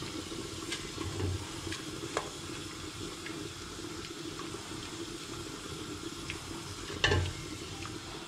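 Gram-flour roux sizzling in hot oil in a deep pot while it is stirred, with the spoon now and then ticking against the pot, and one louder knock about seven seconds in.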